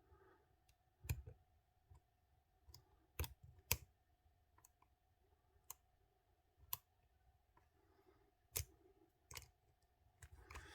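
Lock picking an ISEO cylinder with a small hook and tension wrench: faint, scattered sharp clicks, about nine in ten seconds, as the hook works the pins and pins set.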